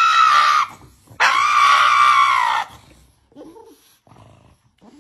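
Pug howling: two long, high wailing cries, the second lasting about a second and a half, its pitch rising and falling back. Faint short sounds follow near the end.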